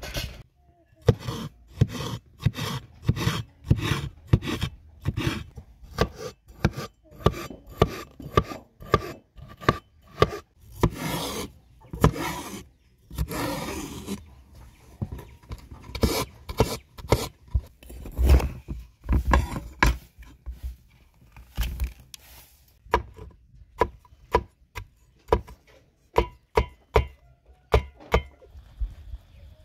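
Cleaver chopping bell peppers on a wooden cutting board: sharp knocks of the blade hitting the board, about two a second, with two longer rasping strokes near the middle.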